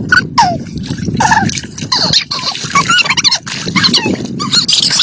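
A busy mix of short animal calls, many quick rising and falling cries one after another, over a steady noisy background.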